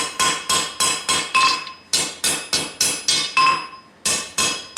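Hand hammer striking a piece of leaf spring steel on an anvil in steady blows, about three a second, each with a bright metallic ring; the blows pause briefly near the end, then resume. The smith is cleaning up the jagged end of the forged spring.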